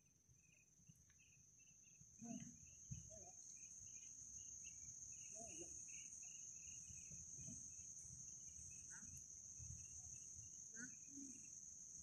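Faint, steady high-pitched insect drone with a run of short, quick chirps beneath it, and a few faint low thumps about two to three seconds in.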